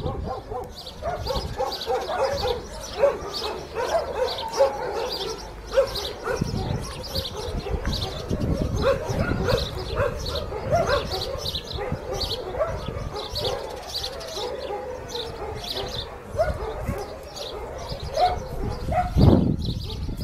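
Puppies yipping and giving short, high barks over and over while they play together.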